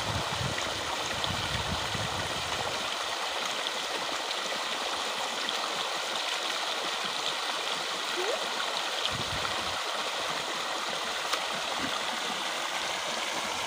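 Water gushing steadily from a large pipe outlet and splashing into a full concrete tank.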